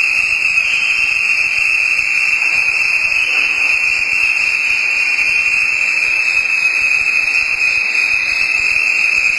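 A loud, steady high-pitched tone with fainter overtones above it, held unbroken throughout.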